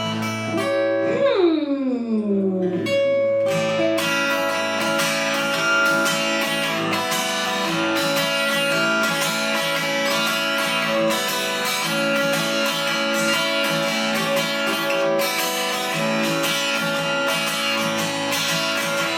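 Acoustic guitar playing a song's instrumental intro: a falling glide in pitch about a second in, then steady rhythmic strumming from about four seconds in.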